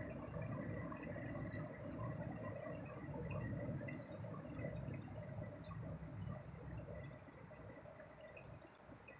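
Water lapping and dripping against a dock, over a low rumble that fades about seven seconds in.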